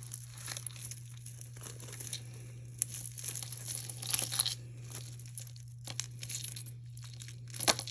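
Hands untangling beaded necklaces and metal chains: faint rustling with small clicks of beads and chain links, a little louder about three, four and near eight seconds in. A steady low hum runs underneath.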